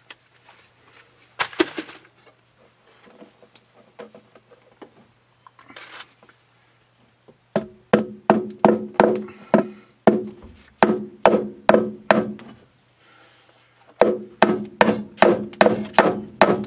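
Hammer driving a nail into a wooden floor joist to fix a pipe hanger: a run of sharp, ringing blows about two and a half a second from about eight seconds in, a short pause, then a quicker run of blows near the end. Lighter knocks and handling before the hammering.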